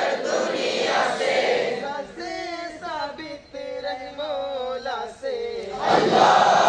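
A large group of students chanting a morning assembly anthem (nashid) together. About two seconds in the massed voices drop away to a single clear voice singing a line alone, and the whole group comes back in near the end.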